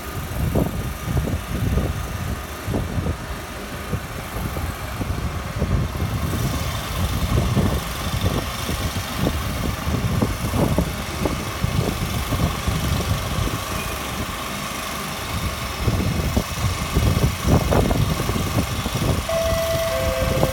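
Low, uneven rumble of an MRT train, a Kawasaki–CRRC C151B, running through the station without stopping at the start, with a faint steady hum underneath. Near the end two short steady tones sound, a higher one and then a lower one.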